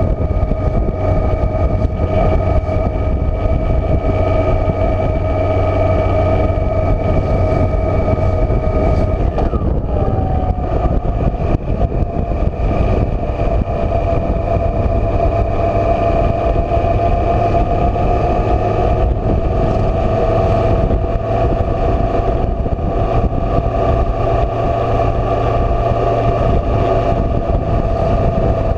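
Motorcycle engine running at a steady cruise with a steady whine, over rushing wind noise. Its pitch briefly glides and shifts about nine seconds in.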